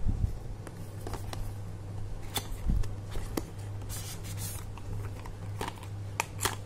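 Cardboard packaging being handled: scattered taps, clicks and short scrapes, with a longer scraping slide about four seconds in as a white inner box is drawn out of its yellow cardboard sleeve. A steady low hum runs underneath.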